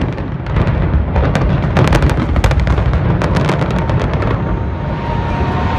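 Building implosion: a rapid series of sharp explosive cracks from demolition charges firing, over a heavy low rumble of the structure coming down. The cracks stop about four and a half seconds in, leaving the rumble.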